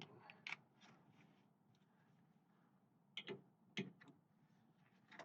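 A few faint metallic clicks and clinks of hand wrenches being handled and fitted, in two small groups about three seconds apart.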